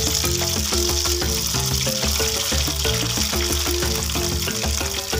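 Hot oil sizzling steadily as egg and skewered balls fry in a wok, with background music carrying a pulsing bass line and repeating notes.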